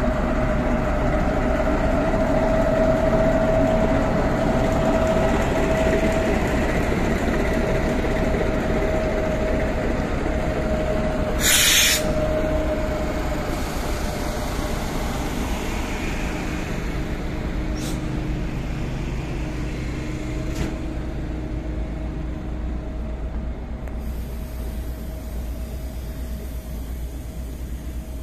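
V65 diesel locomotive running as it slowly pulls a train of wagons and coaches past, with a steady whine over the engine hum that gradually fades as the locomotive draws away. A short sharp hiss of air about twelve seconds in, and a couple of light clicks later.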